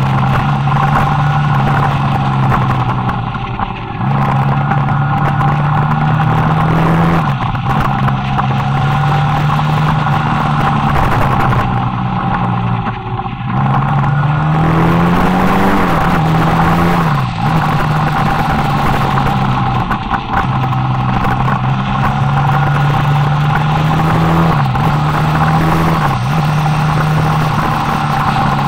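Motorcycle engine running under way on a downhill ride. Its note holds steady for stretches and dips or rises every few seconds as the throttle and gears change for the bends.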